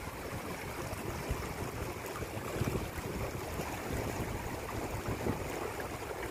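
Steady rush of fast-flowing stream water.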